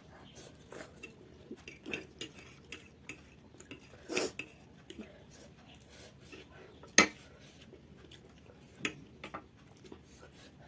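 Chopsticks clicking and scraping against a noodle bowl in scattered light clinks, with the sharpest click about seven seconds in.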